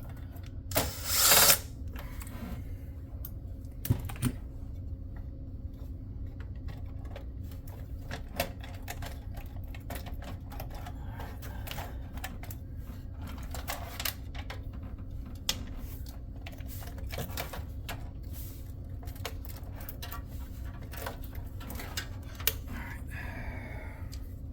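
Irregular small clicks and clatters of screws and computer parts being handled as a PC is taken apart, with a louder burst of noise about a second in; a steady low hum runs underneath.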